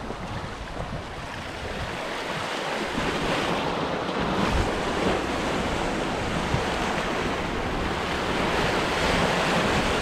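Sea waves washing against shoreline rocks, the surf swelling louder from about two seconds in, with wind buffeting the microphone.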